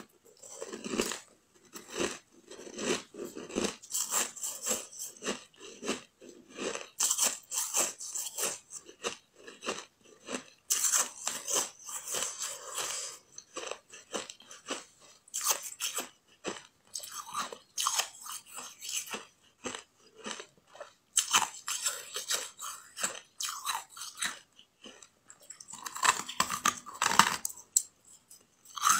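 Close-up chewing and crunching of compacted ice, a bun-shaped block pressed and frozen without any added water. A dense, irregular run of crisp crunches with a few short pauses, the loudest bites near the end.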